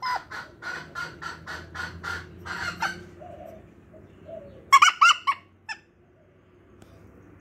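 Rooster clucking in a quick run of short calls for about three seconds, then a few loud, sharp squawks a little after the middle.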